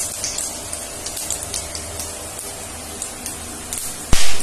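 Whole spices (cumin seeds, bay leaf, cinnamon, cloves and black cardamom) sizzling and crackling in hot oil and ghee in an aluminium kadai, with many small pops: a spice tempering frying. A loud, brief thump about four seconds in.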